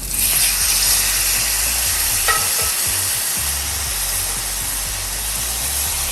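Cream sauce hitting a hot iron sizzling plate with meatballs, sizzling hard as it boils on the metal; the sizzle starts suddenly and keeps going steadily. A couple of faint clinks of a utensil on the plate come through about two seconds in.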